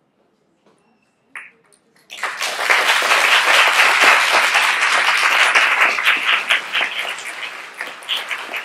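Audience applauding, starting abruptly about two seconds in and slowly tapering off.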